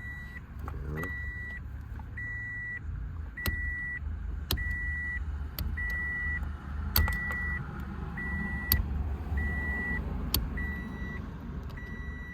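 A car's electronic warning chime beeping evenly, a short high beep about every 1.2 seconds, over a low hum, with a few scattered sharp clicks.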